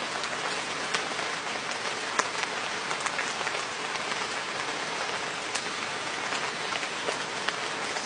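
Dental scaling: a steady spraying hiss of water and suction, with scattered crackles and clicks, as tartar is cleaned off the teeth.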